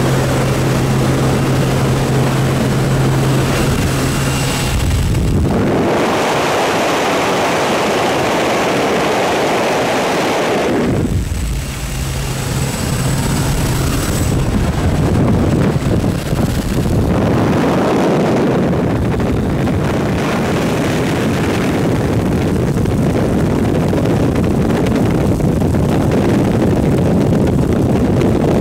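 Wind rushing past the open door of a propeller-driven jump plane in flight, over the steady drone of its engine, with wind buffeting the microphone. The engine hum stands out clearly in the first few seconds and again about twelve seconds in.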